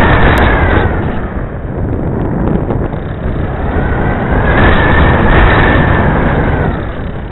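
Wind rushing over a small onboard camera's microphone on a flying RC aircraft, with the high whine of its motor. The whine fades about a second in and comes back up around four to five seconds before dropping again near the end.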